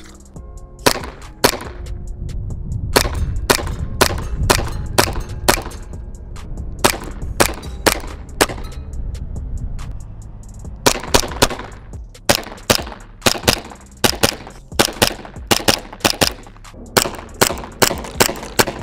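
Hi Capa-style gas blowback airsoft pistol firing shot after shot, each a sharp crack of the gas and cycling slide, at an uneven pace with some quick runs of two or three shots.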